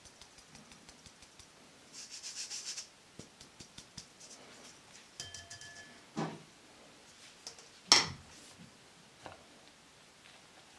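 Flour being sifted through a fine wire-mesh sieve into a glass bowl: a quick rattling run as the sieve is shaken about two seconds in, with scattered ticks and a few knocks, the sharpest about eight seconds in.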